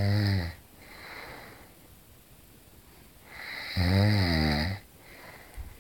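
A sleeping man snoring loudly: the end of one low, buzzing snore right at the start, a softer breath, then a second long snore about three and a half seconds in, its pitch wavering as it rattles.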